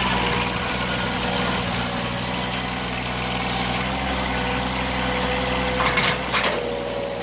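Diesel engine of a John Deere compact tractor-backhoe running steadily, freshly jump-started in the cold. Two short knocks sound about six seconds in.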